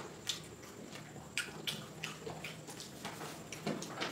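Eating by hand: soft, wet, irregular smacks and clicks as rice and chicken curry are mixed with the fingers on a plate and chewed.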